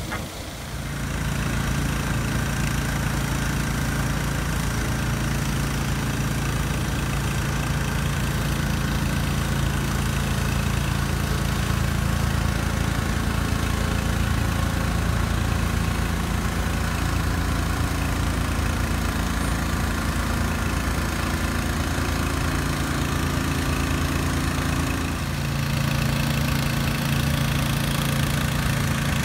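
A locomotive's steady low engine hum, holding a few fixed tones. It dips briefly about 25 seconds in, then comes back a little stronger.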